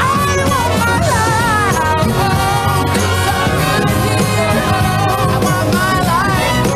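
Upbeat pop-rock song: a singer over acoustic guitar and a band with a steady drum beat.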